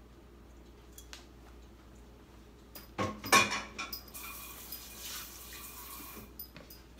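Metal cooking pan clattering several times about three seconds in, then a tap running for about two seconds before shutting off.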